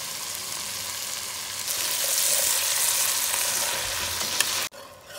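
Ground meat and vegetables sizzling in an enameled pot as enchilada sauce is poured in and stirred with a spoon. The hiss gets louder about two seconds in and cuts off suddenly near the end.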